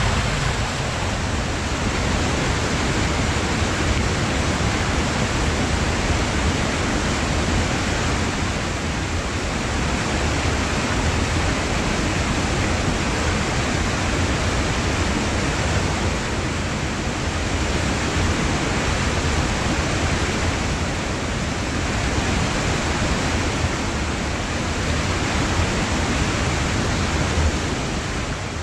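Loud, steady rushing of a rain-swollen mountain stream, with a deep low rumble under the hiss of the water.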